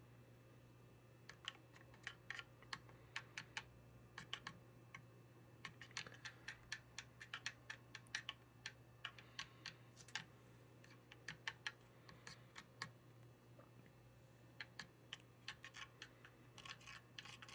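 Small plastic stirring spoon clicking quickly and irregularly against the walls of a plastic toy water tank as powder is stirred into the water. Faint, with a short lull near the end.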